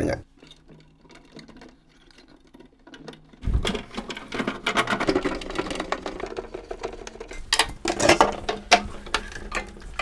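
Quiet for about the first three seconds. Then hands working a screwdriver on a refrigerator's plastic thermostat housing make dense clicks and scrapes, with a cluster of sharper clicks near the end.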